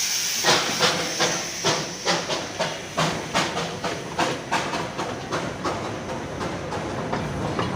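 Darjeeling Himalayan Railway steam locomotive chuffing, with sharp exhaust beats about two and a half a second from about half a second in. The beats grow weaker and blur into a steady hiss and rumble after about five seconds.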